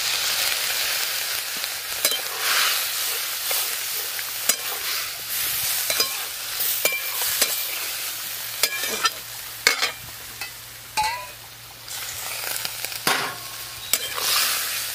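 Liquid poured into a hot wok of fried vegetables sizzles and hisses while a metal spatula stirs it, scraping and clinking against the pan every second or two.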